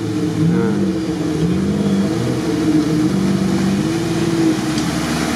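ZAZ-968M Zaporozhets's air-cooled V4 engine revving up and down in about six surges, labouring as the car wades through deep water and mud.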